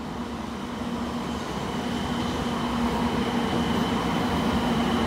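A 700 series 7000 'Rail Star' shinkansen departing and accelerating: its electric traction drive gives a steady hum and a high whine over the rolling noise of the cars, growing steadily louder.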